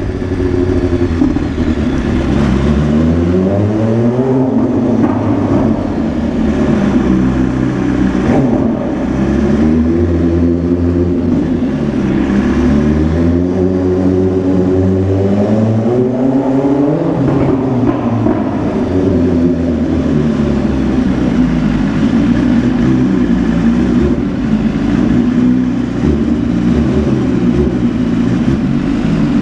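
A BMW S1000RR sport bike's inline-four engine is revved up and let fall back again and again. In the last part it holds a steadier running note.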